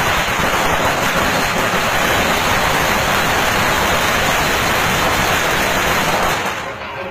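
A long string of firecrackers going off as one rapid, continuous crackle, which stops about six and a half seconds in.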